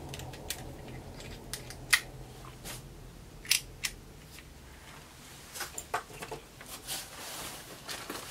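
Small scattered clicks and taps of a plastic action figure being handled, growing denser near the end as a hand reaches into a cardboard box.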